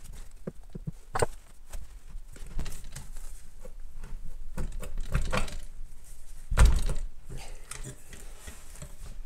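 Clunks and knocks of a 50 cc 139FMB pit bike engine's crankcase halves being worked apart by hand, the engine and its parts shifting against the stand. A few scattered knocks, with the loudest thud about six and a half seconds in.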